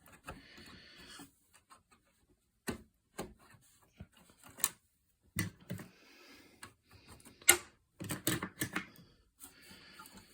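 Sharp plastic clicks and light clatter of DDR2 memory modules being unclipped and pulled from a Power Mac G5 Quad's memory slots, with single clicks spaced a second or two apart and a quick cluster of several clicks near the end.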